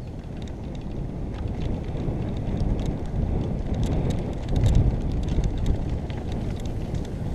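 Wind buffeting a helmet-mounted camera's microphone and mountain-bike tyres rolling over a dirt trail during a fast downhill descent, with scattered clicks and rattles from the bike. It grows a little louder about halfway through.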